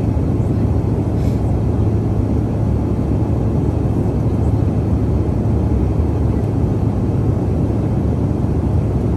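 Steady cabin roar of a CRJ-700 regional jet in the climb after takeoff: its two rear-mounted GE CF34 turbofans and the rush of air past the fuselage, heard inside the passenger cabin as an even, unbroken drone with a low hum.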